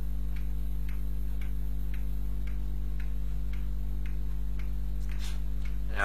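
A clock ticking evenly, about two ticks a second, over a steady low electrical hum. Two brief high sounds come near the end.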